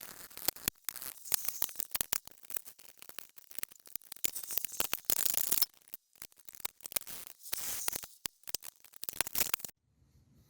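Hand tools working on the old exhaust's fittings: a quick, irregular run of sharp metallic clicks and scrapes, with a few spells of scratchy hiss lasting a second or two, then a brief pause near the end.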